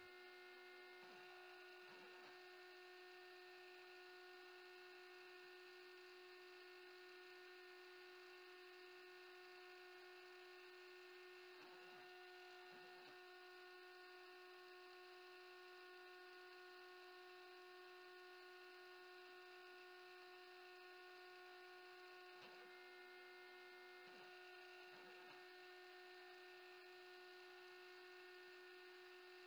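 Very faint steady hum of a CNC router spindle running while it cuts 20 mm HDPE, turned far down, with a few faint brief swells.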